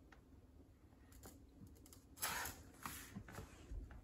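Faint clicks of a laptop keyboard and small handling noises in the first two seconds, then two short breathy rushes of noise about two and three seconds in.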